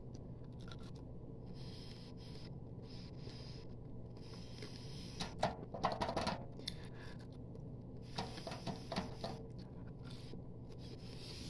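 Faint scratching and handling noises, in short clusters about five to seven seconds in and again around eight to nine seconds, over a steady low hum.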